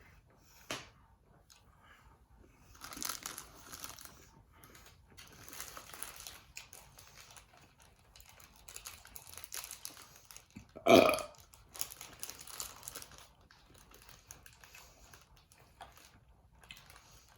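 A woman burps once, loudly, about eleven seconds in, a short pitched belch of under a second. Softer rustling noises come and go around it.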